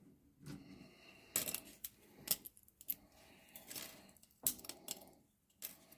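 Hard plastic 3D-printed holder being handled and fitted, giving irregular light clicks and taps.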